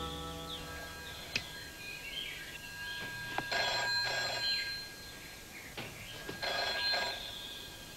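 Telephone bell ringing twice, about three seconds apart, after a short sharp click about a second in; background music is fading out at the start.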